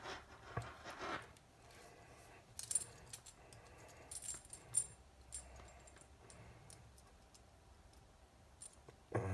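Scattered light clicks and small metallic clinks, a handful spread over several seconds, from small parts, screws and tools being handled on a workbench.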